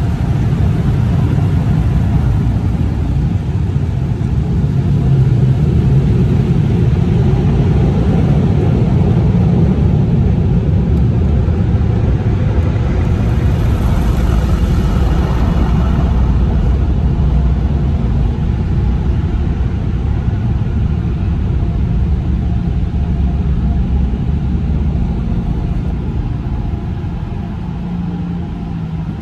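Automatic car wash machinery running, heard from inside the car's cabin: a loud, steady rumble that eases off near the end as the car pulls out of the bay.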